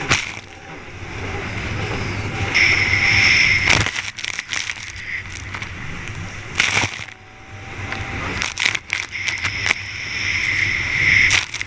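Jet ski running hard over choppy water, its hull slapping and crashing on the waves with spray hitting the craft. The engine note drops and picks up again between hard impacts.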